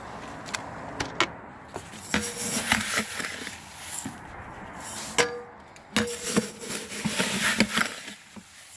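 A metal saucepan scooping dry crushed malt: the grain rustles and pours in several bursts, with sharp clinks of the pan, three of them ringing briefly.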